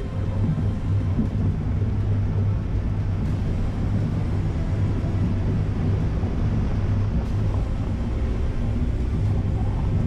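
Steady low rumble of a Nissan X-Trail driving through a shallow river ford and out onto a gravel track, picked up by a camera mounted on its bonnet. Music plays faintly underneath.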